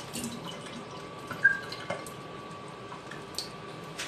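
Water running from a countertop water dispenser's spout into a glass, a steady trickle, with a couple of small sharp clinks.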